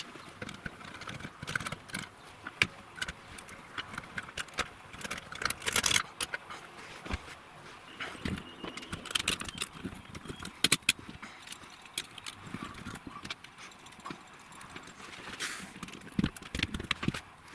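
Scattered small clicks, taps and rattles of metal parts being handled as a bolt is undone and a pin slipped out to free the walking-beam axle bogie of a scale RC truck trailer.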